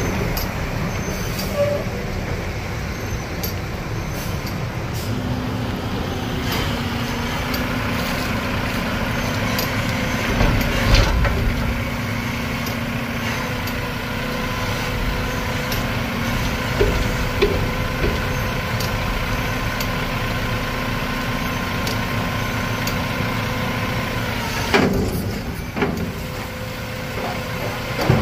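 Mack MRU garbage truck's diesel engine running under load as its Heil front-loader arms work a dumpster, with a steady hum from about five seconds in until near the end. A loud knock about eleven seconds in, and sharper knocks near the end as the dumpster goes up overhead.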